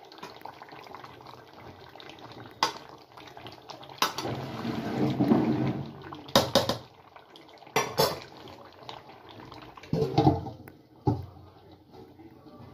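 Steel ladle stirring chicken curry in a steel pot: the wet gravy sloshing, with several sharp clinks and scrapes of the ladle against the pot's sides.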